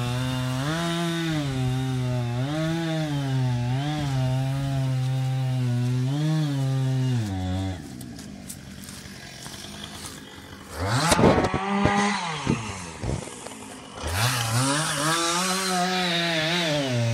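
Chainsaw running and cutting through branches, its pitch swelling up and down with the throttle. About eight seconds in it drops back. A loud, rough burst with sharp cracks comes a few seconds later, and then the saw revs up again near the end.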